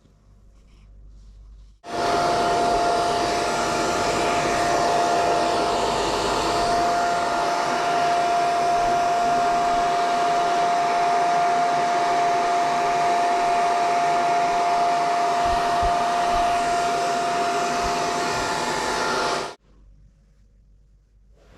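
Hair dryer blowing steadily with a constant whine, switched on about two seconds in and switched off shortly before the end.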